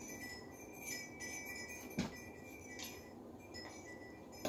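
Small metal parts clinking lightly as they are handled during ceiling fan mounting, with a sharp click about two seconds in and another at the end.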